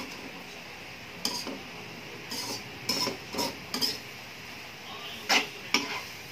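Metal spatula scraping and knocking against a metal wok as fried noodles are tossed and stirred: about seven irregular clinks and scrapes, the loudest two a little after five seconds in.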